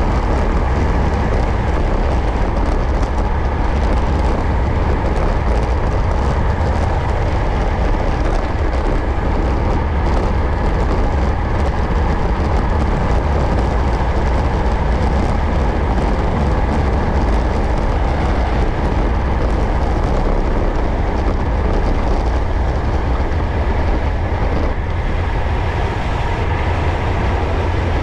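Wind rushing and buffeting over an action camera's microphone on a fast road-bike descent at about 35 mph, with the rumble of road-bike tyres on rough tarmac. It eases slightly near the end as the bike slows.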